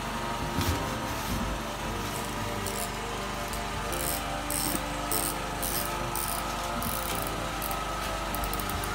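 Fishing reel's ratchet clicking as it is handled, in short runs of clicks that come quick and dense near the end, over a steady mechanical hum.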